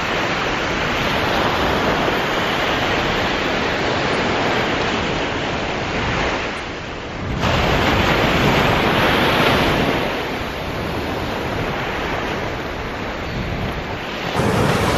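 Ocean surf breaking and washing up a sandy beach, with wind on the microphone. The wash swells louder about halfway through and again near the end.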